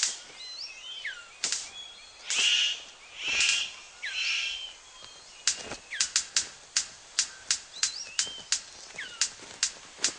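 Male superb bird of paradise in courtship display before a female. Short gliding chirps run throughout, with three rasping hisses in the first half. From about five and a half seconds come sharp snapping clicks in quick succession, about three a second.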